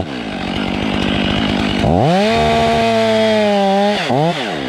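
Two-stroke chainsaw running at a low, uneven idle, then revved hard to full throttle about two seconds in and held there. Near the end the throttle drops off and is blipped once more.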